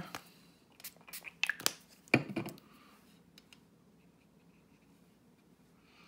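A handful of small clicks and knocks from craft supplies being handled and set down on a glass craft mat, the loudest knock about two seconds in. After that only faint room tone.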